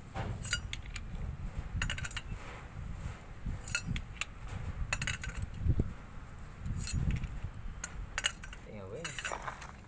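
Hand tools and steel parts clinking and clanking as a truck differential is taken apart: irregular sharp metallic clicks over a low, steady rumble.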